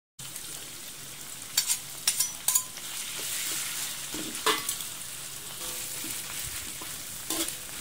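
A pounded chili, shallot and ginger paste with lemongrass sizzling steadily in hot oil in a wok, with a metal spatula scraping and clicking against the pan several times as it is stirred. This is the sauté stage, frying the paste until it turns fragrant.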